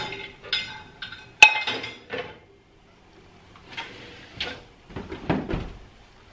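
Dishes and utensils clinking and clattering as they are handled, a series of separate knocks with one sharp, ringing clink about a second and a half in, the loudest.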